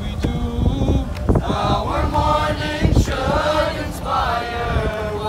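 Male voices chanting a melodic mourning chant together. A couple of sharp knocks come through, about three and four seconds in.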